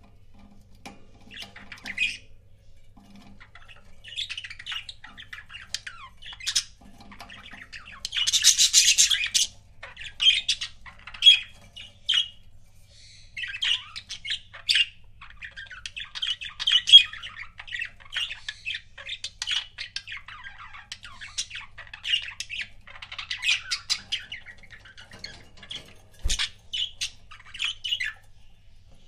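Pet budgerigars chattering with rapid chirps and warbles, and a louder, harsh squawk about eight seconds in. There is a single sharp tap near the end.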